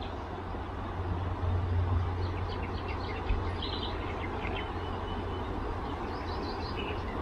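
Wind rumbling on the microphone, strongest about a second in, with small birds chirping now and then.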